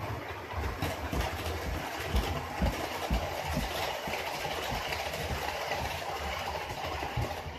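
HO scale model trains running on sectional track: the whirr of small electric motors and the clatter of wheels over rail joints, growing louder through the middle as a train comes near, with irregular low thumps.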